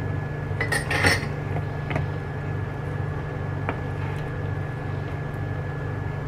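Hands working green chillies through thick batter in a plastic mixing bowl, with a few sharp clinks and knocks of kitchenware, the loudest cluster about a second in, over a steady low hum.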